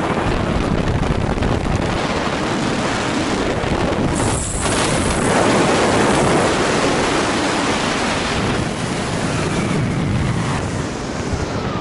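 Wind rushing over a helmet camera's microphone during a parachute swoop landing, swelling to its loudest about five seconds in as the canopy dives and easing a little as it levels out low over the grass.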